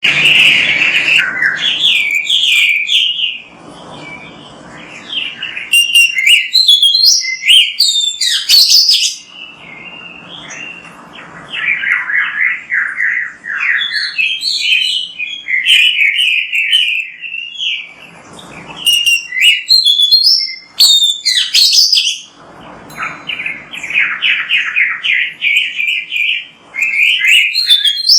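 Oriental magpie-robin (kacer) singing a loud, fast song of chirps and whistled notes in long phrases broken by short pauses, starting suddenly.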